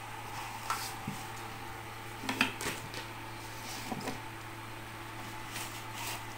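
Light clicks and taps of a power cable and plug being handled and pushed into a home Wi-Fi router's socket, the clearest about two and a half seconds in, over a steady low hum.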